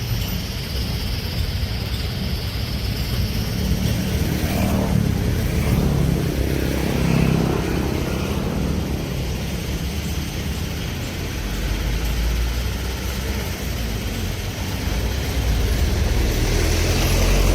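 Heavy construction machinery's diesel engine running under load, a low rumble that swells and eases a few times.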